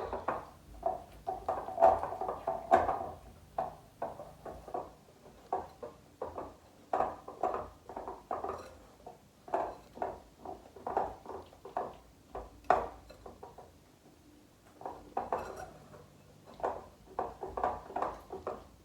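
Spatula stirring and scraping thick, half-melted chocolate and butterscotch chips around a bowl, in a run of short, irregular scraping strokes with a brief pause about two-thirds of the way through.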